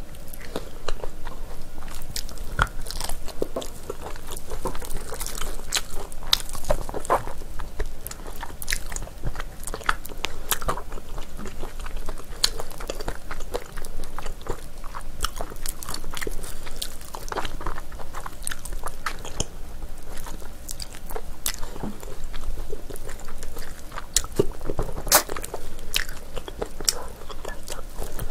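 Close-miked biting and chewing on spicy braised beef feet: chewy, gelatinous meat gnawed off the bone, with many irregular sharp clicks and crunches.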